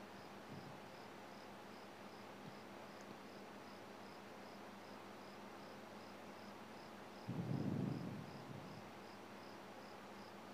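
Faint, regular high chirping about twice a second, a cricket, over quiet room tone. About seven seconds in, a short muffled knock and rustle of something being handled.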